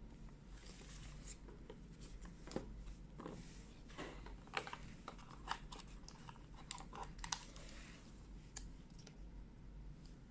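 Hands handling a phone's packaging and boxed accessories: light clicks, taps and plastic or cardboard rustling, busiest in the middle.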